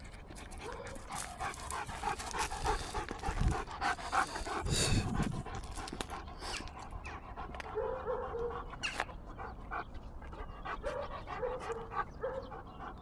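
Large Presa Canario dog panting, its breathing loudest in the first half.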